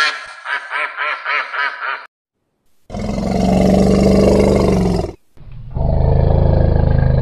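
A mallard hen gives a quick run of about seven quacks. After a short pause come two long, low bellows from an American bison bull roaring.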